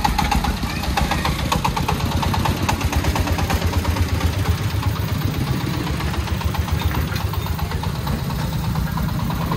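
Công nông three-wheeled tipper truck's 24-horsepower diesel engine running with a steady, rhythmic diesel knock as the truck pulls away slowly with its dump bed raised.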